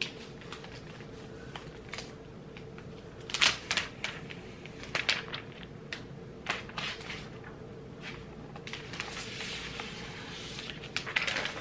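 Protective paper wrap being peeled off a new MacBook Pro: crinkling, crackling paper with scattered sharp clicks, loudest about three and a half seconds in, and a longer rustle near the end.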